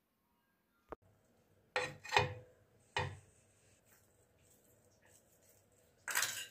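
A spoon knocking and scraping on a nonstick tawa as a lump of butter is spread over the pan: a single click, then a few short knocks and scrapes, and a longer rough scrape near the end.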